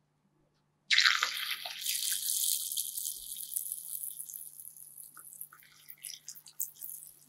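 A tofu cube dropped into hot oil in a miniature wok, sizzling loudly the moment it goes in about a second in, then fading over several seconds to scattered crackles and pops as it deep-fries.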